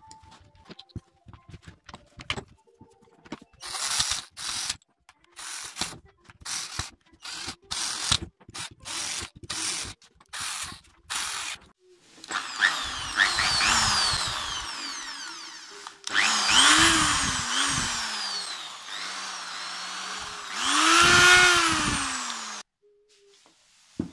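Corded electric drill run with nothing in the chuck. First come a few light clicks of handling, then a string of short trigger blips. Then the motor spins up and winds down several times, its pitch rising and falling with the trigger, and it stops near the end. This is a test run after the drill's repair.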